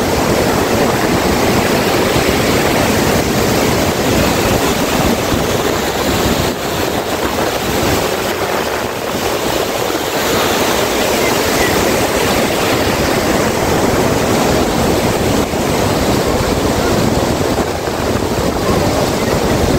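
Steady rush of floodwater pouring over an overflowing reservoir spillway, mixed with wind buffeting the phone's microphone.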